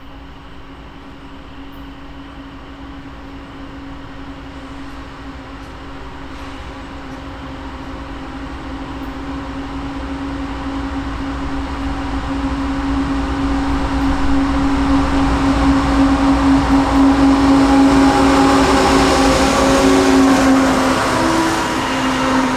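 CSX diesel freight locomotives approaching, their engine drone holding a steady pitch and growing steadily louder, loudest a few seconds before the end.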